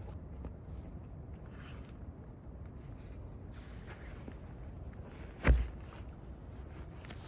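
Steady high-pitched chirring of crickets, with faint footsteps on a forest path and one loud low thump about five and a half seconds in.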